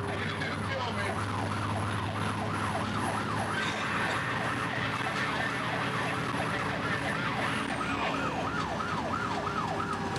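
Fire truck siren on a fast yelp, its pitch sweeping up and down about three times a second, over a steady low engine hum.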